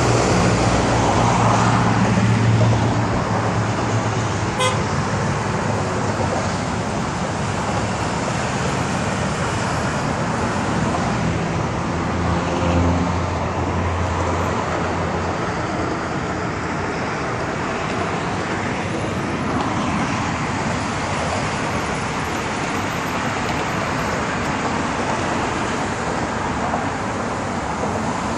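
City road traffic: cars and vans driving past with steady tyre and engine noise. Heavier engine hum swells near the start and again about twelve seconds in as larger vehicles pass.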